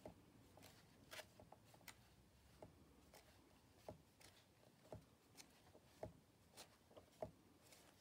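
Faint paper rustles and soft flicks as the pages of a large softcover book are turned one after another, a short crackle every half second to a second, against near silence.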